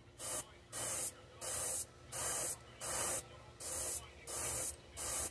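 Airbrush spraying paint in short bursts of hiss, the trigger pulled and released about eight times, roughly once every three-quarters of a second.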